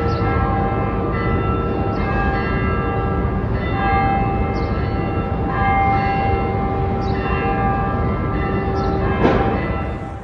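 Church bells pealing, struck about every second or so, each strike leaving long ringing tones that overlap the next, over low street rumble. A sharper, louder hit comes near the end.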